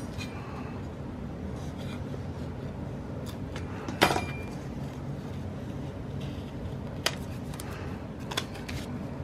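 Craft supplies handled and set down on a desk: a sharp tap about four seconds in, then lighter clicks near seven and eight seconds, over a steady low hum.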